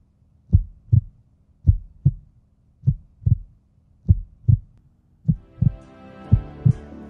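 Heartbeat sound effect: deep double thumps, lub-dub, about once a second. Music swells in under it from about five seconds in.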